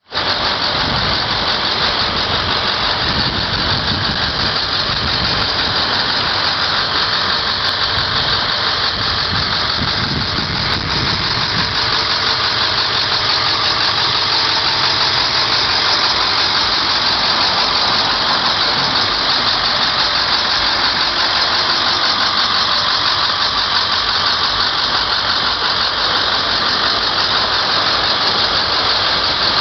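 Converted school bus engine idling steadily under a loud, even hiss. The low rumble is uneven for about the first twelve seconds, then settles.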